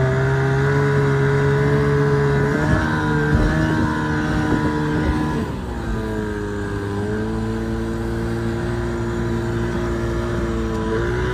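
Mercury 25 two-stroke outboard pushing a small mini race boat across the water, heard from the cockpit. Its pitch dips and climbs back a few times as the throttle changes, with a drop around the middle and a rise again near the end.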